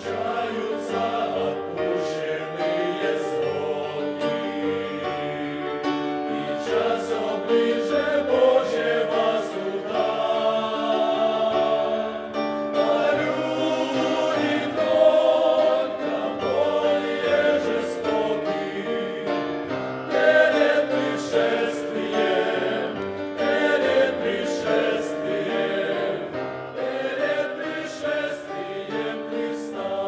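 Mixed choir of men's and women's voices singing a Russian-language hymn.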